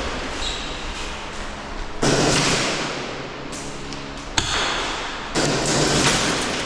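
Airsoft guns firing in rapid bursts. Each burst starts suddenly and trails off over a second or two, with a sharp knock about four seconds in.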